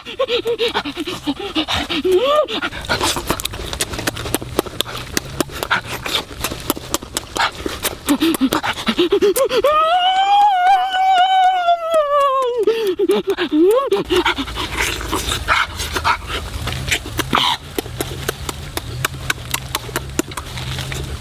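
Loud, wet chewing and lip-smacking of roasted chicken, a dense run of clicks and smacks. Near the middle a long, high, wavering vocal cry rises and falls for about four seconds.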